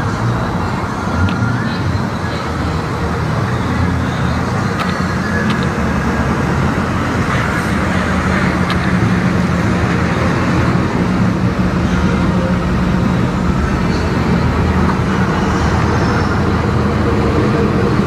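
A car engine running steadily close by, a continuous low-pitched rumble that swells slightly partway through.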